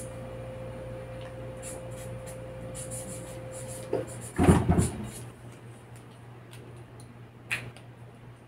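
Handling of drafting tools on a table: a click about four seconds in, then a short knock and clatter, and another click near the end, over a steady low hum.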